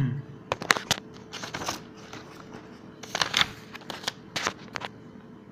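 A few sharp clicks about half a second in, then several short bursts of scratchy rustling.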